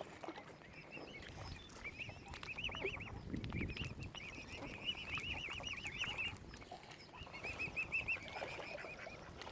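Young mute swan cygnets peeping: three runs of quick, repeated high-pitched notes.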